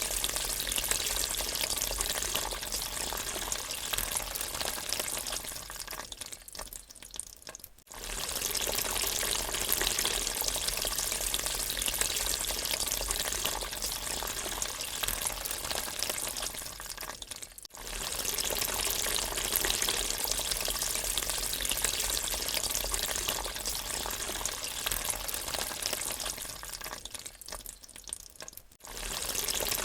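Water running down a drain in a steady gurgling hiss that twice fades away and starts up again, with a brief break in between, roughly every ten seconds.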